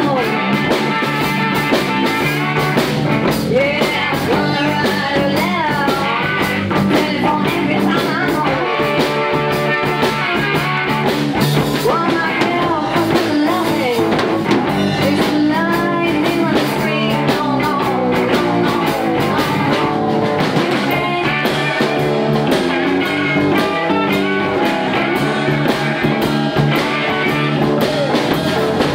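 Live blues band playing a shuffle on slide guitar, a second electric guitar, bass and drums, the slide guitar's gliding notes standing out.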